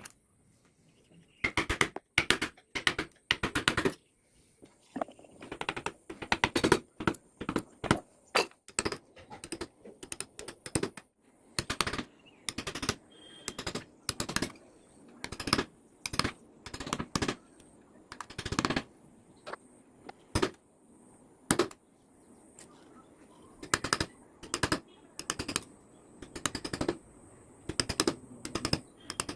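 Carving chisel being struck with a mallet into teak: a long series of sharp knocks coming irregularly, often in quick clusters of two or three.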